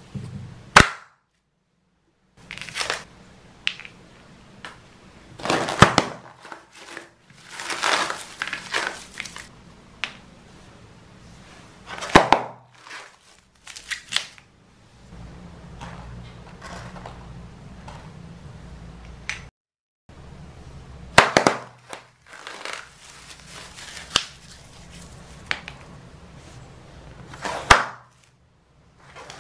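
Toy plastic-paste bond balloons being popped one by one, each giving a sharp, loud snap, about six in all. Between the pops the torn plastic film crinkles and rustles as it is handled.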